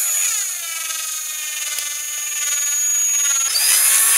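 Cordless drill drilling out a diecast rivet in a toy tractor's base. The motor's whine drops in pitch over the first second as the bit bites into the metal, holds steady under load, then rises again near the end as the load eases.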